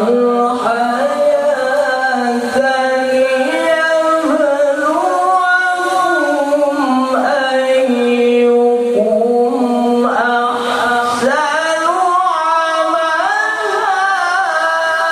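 A qari reciting the Quran in the melodic chanting style of tilawah, one voice holding long ornamented notes with bending, gliding pitch.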